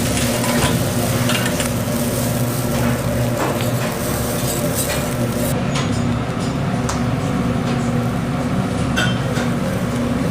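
Food sizzling on a hot grill, with metal utensils clinking and scraping against pans.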